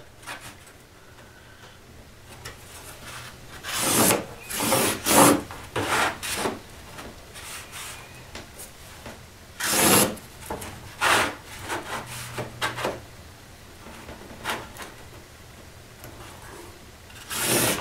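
Marker scratching lines along a steel framing square on a pattern layout, with the square being slid and set down between lines: short scratchy strokes in a few clusters, the clearest about four seconds in and about ten seconds in.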